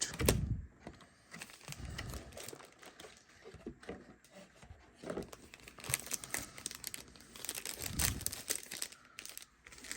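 Foil trading-card booster pack wrappers crinkling and rustling as they are handled, with irregular small crackles.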